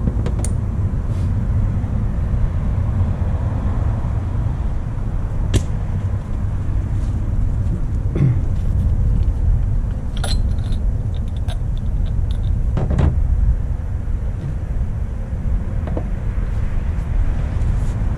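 Wind buffeting the microphone, an uneven low rumble, with a few clicks and clinks of hand tools and fittings being handled.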